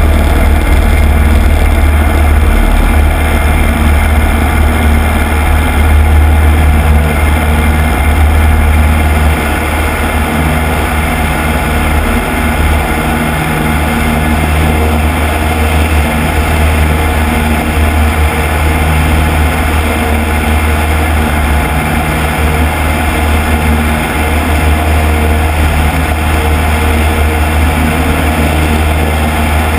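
Piper Cub's small piston engine and propeller running loud and steady at high power through a ski takeoff roll and climb-out, with a dense rush of wind and engine noise over the outside-mounted camera. The level dips slightly about nine seconds in.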